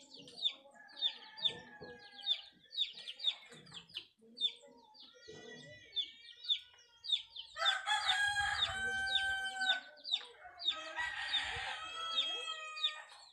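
A rooster crowing twice, each crow lasting about two seconds, over a bird's short high chirps repeating about twice a second.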